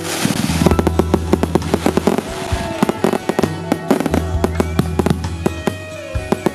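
Fireworks going off in a rapid string of cracks and bangs, densest in the first four seconds and thinning out after, over music with a steady bass line.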